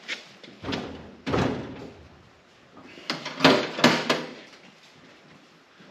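A heavy steel tool cabinet being heaved and shifted into place: a couple of dull thuds, then two loud metal clunks close together about three and a half seconds in.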